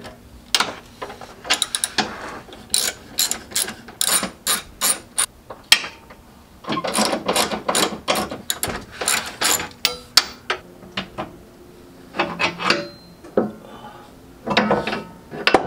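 Ratchet wrench clicking in short, quick runs as it turns a nut on the front suspension of an Infiniti G35, with separate metal clicks and knocks between the runs.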